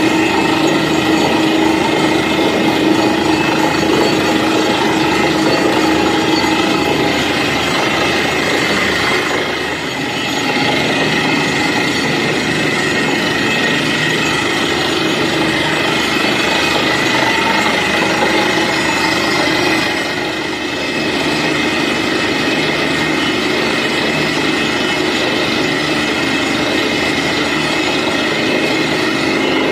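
Truck-mounted borewell drilling rig running while drilling a water well: a loud, steady mechanical din that dips briefly about ten and twenty seconds in.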